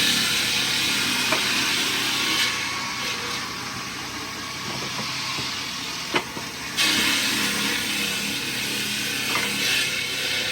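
Loud hissing noise in two long bursts of a few seconds each, with a sharp click between them, over a steady machine background.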